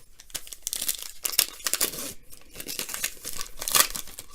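A 2018-19 Donruss Optic Basketball trading-card pack wrapper being torn open and crinkled, with irregular crackles and the loudest crackle about three and a half seconds in.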